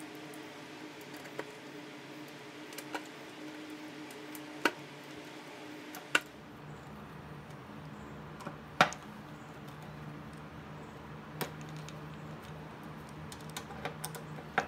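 Scattered sharp metal clicks and taps of a nut driver on the screws of a motorcycle fuel pump flange plate as they are tightened one by one, every second or few. The loudest click is about nine seconds in, with a quick cluster near the end. A steady low hum runs underneath and drops in pitch about six seconds in.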